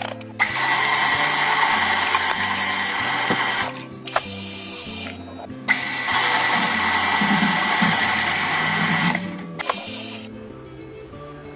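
Metal being cut on a lathe: a loud hissing cut with a steady whine, in stretches that start and stop abruptly. Background music plays underneath.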